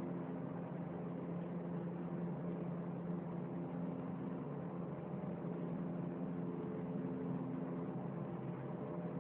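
Steady, droning hum in the sky, several tones held over a rushing noise, which the uploader likens to a jet hovering overhead; its source is unexplained.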